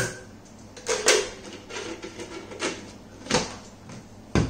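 Plastic knocks and clicks from a mixer grinder's polycarbonate juicer jar being handled, its lid and filter being fitted. The loudest knock comes about a second in, and a heavier, duller knock just before the end.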